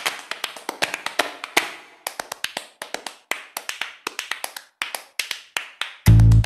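Outro music opening with a run of sharp percussive clicks and taps, several a second; low bass notes come in near the end.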